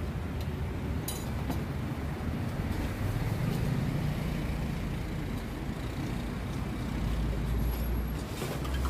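Steady rumble of city road traffic, swelling now and then as heavier vehicles pass, with a couple of light clicks about a second in.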